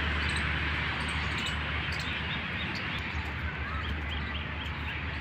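Steady background hum of road traffic with a few faint bird chirps.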